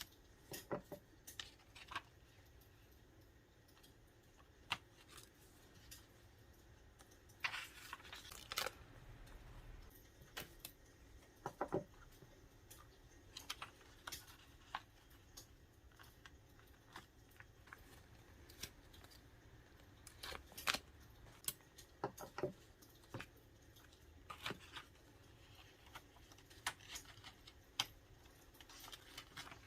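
Quiet paper-craft work sounds from sticker customizing of a Traveler's Notebook: scattered light clicks and taps from handling stickers and paper, with a longer rustle about eight seconds in, over a faint steady background hiss.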